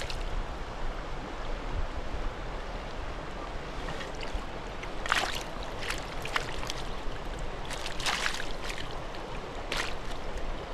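Flowing creek water, a steady rush, with several brief sharp sounds over it from about halfway through.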